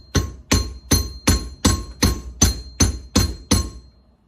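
About ten hammer blows on metal in a steady rhythm, roughly two and a half a second, each leaving a short high metallic ring, then stopping near the end. The coilover part being driven is not budging.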